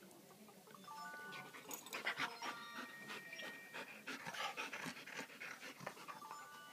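A Jack Russell terrier and a large black long-haired dog play-wrestling: panting, with scuffling and scattered clicks and knocks that are busiest from about two seconds in.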